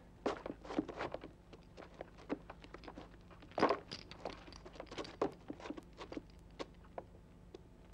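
Irregular scuffling, rustling and soft knocks of several people crouching and shifting about on the ground, with a louder rustle about three and a half seconds in.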